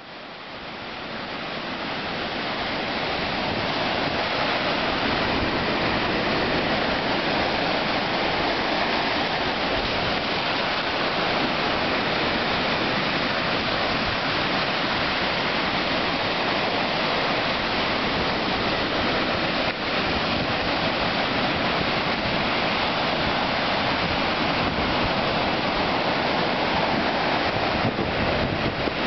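Ocean surf on a sandy beach: a steady rush of breaking waves washing up the shore, fading in over the first few seconds.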